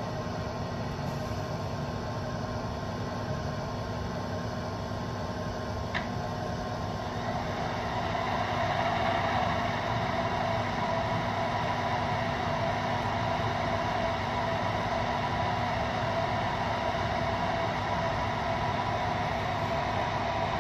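Sound system of an MTH O-gauge model subway train playing its standing idle sounds: a steady hum of subway-car equipment. There is a short click about six seconds in, and the sound grows a little louder from about seven seconds on.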